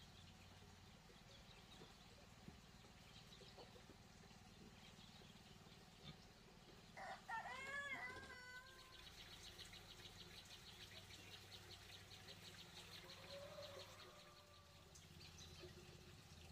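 A rooster crows once, a call of about two seconds that rises and falls, about seven seconds in, over a very quiet background. Right after it a high, fast-pulsing trill goes on for about five seconds.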